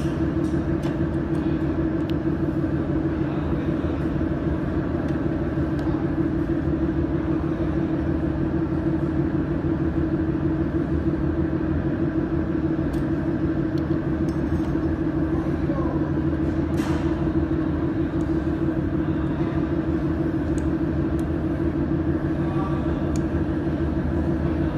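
Steady machine hum, unchanging in level, with a few faint scattered clicks.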